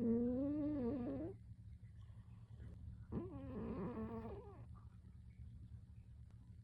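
A pet cat snoring loudly: two drawn-out, wavering snores, the first dying away about a second in and the second starting about three seconds in.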